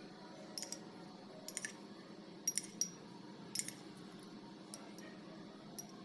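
About ten light, irregularly spaced clinks of a metal spoon against a ceramic cup as coloured milk is spooned out over rice.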